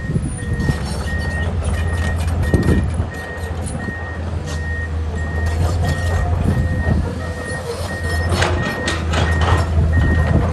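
Hydraulic excavator's diesel engine running under a travel alarm beeping in an even rhythm. A few sharp knocks come near the end.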